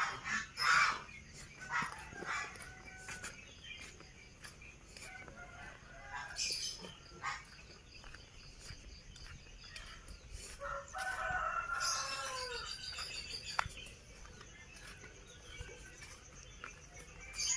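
A rooster crowing once, a long call of about two seconds about two-thirds of the way through that drops in pitch at its end. Short high bird calls are scattered around it.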